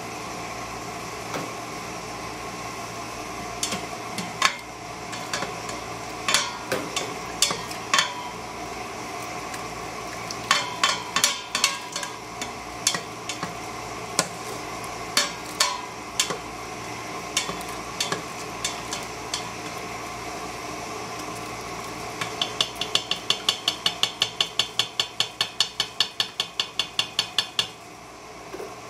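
A plastic slotted spoon stirring cooked chicken cubes and knocking against the stainless steel inner pot of an Instant Pot, with irregular clunks, some of them leaving a short metallic ring. Later comes a quick run of taps, about five a second, lasting several seconds.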